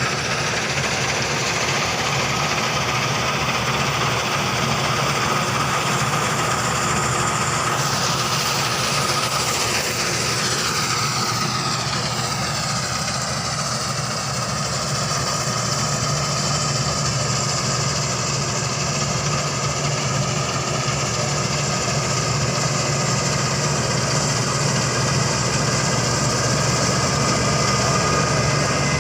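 Claas Crop Tiger 40 combine harvester running steadily, its engine and machinery making a continuous whine over a rumbling base. About a third of the way in, the whining tones glide down in pitch over several seconds, then hold steady again.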